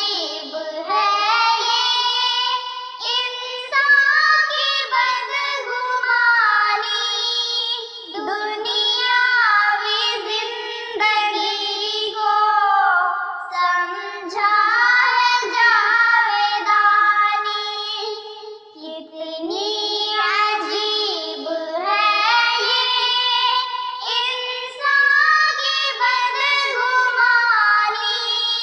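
Two young girls singing an Urdu nazam together, unaccompanied, with a short break between lines about halfway through.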